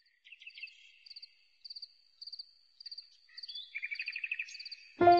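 Crickets chirping in short, high, pulsed trills about every half second, joined for about a second by a lower buzzing trill. Music comes in right at the end.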